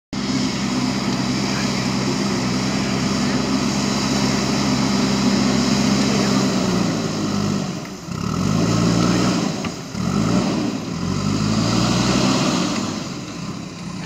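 JCB 3DX Super backhoe loader's diesel engine running steadily, then from about seven seconds in rising and falling in pitch in several swells as the machine pushes dirt with its front loader bucket.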